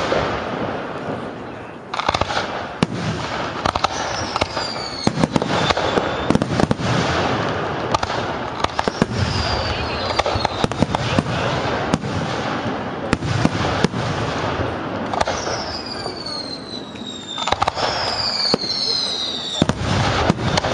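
Fireworks display: a rapid, continuous run of aerial shell bangs, with several high whistles gliding down in pitch.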